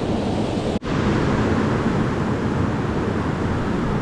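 Mountain stream water rushing steadily in an even, full noise, cutting out for an instant a little under a second in.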